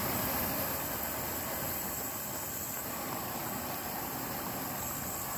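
Steady rushing noise of a large kadai of thin fish curry boiling hard over a burner turned up high.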